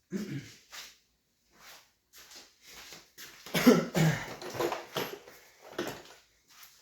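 A man coughing several times in short bursts, loudest about three and a half seconds in.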